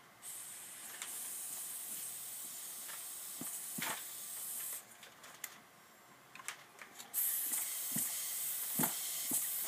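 Compressed air hissing out of a small oscillating-cylinder wobbler engine, with a few light clicks as the flywheel is turned by hand to get it started. The hiss stops for about two seconds midway, then comes back.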